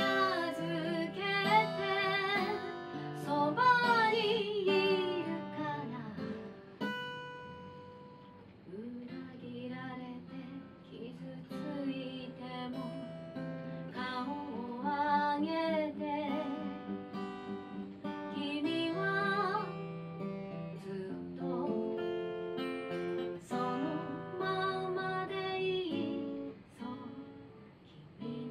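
A woman sings a ballad in Japanese to her own acoustic guitar, strumming and picking, heard live through the room. The singing eases off briefly about seven seconds in while the guitar carries on.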